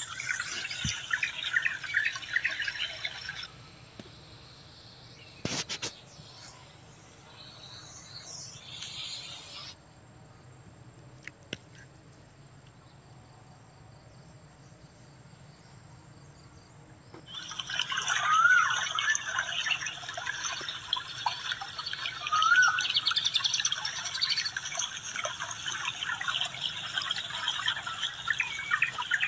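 Birds chirping and chattering in dense overlapping calls, dropping away about three seconds in and coming back strongly in the second half.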